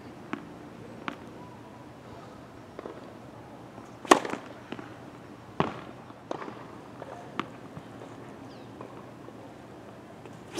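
Tennis ball impacts during serve practice on a hard court: sharp pops of the ball off the racket strings and the court surface, the loudest about four seconds in, with several lighter, irregularly spaced ones around it.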